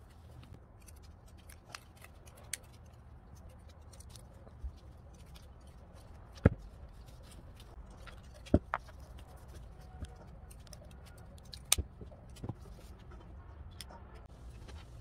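Fabric scissors cutting cloth and bias tape, with scattered sharp snips and clicks, three of them much louder than the rest, over the rustle of handled fabric and a low steady hum.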